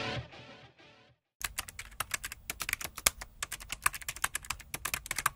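Typing sound effect: a rapid, irregular run of key clicks accompanying on-screen title text being typed out letter by letter. It starts about a second and a half in, after guitar music fades out.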